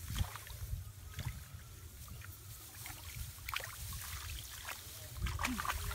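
Hands sloshing and splashing in shallow muddy water, groping through mud and grass for fish, in scattered short splashes over a low rumble. A voice starts near the end.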